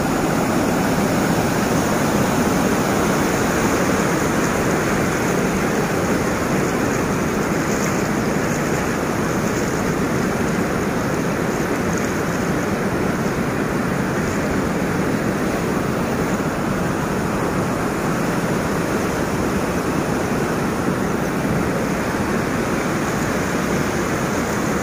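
Muddy floodwater rushing steadily over a road, a continuous even rush of water with no break.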